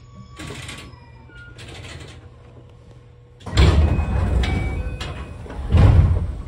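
JR 205 series electric train stopping at a station platform, with a faint brake squeal and two short hisses of air. Then come two much louder rushes of air with a heavy rumble, one about halfway through and one near the end.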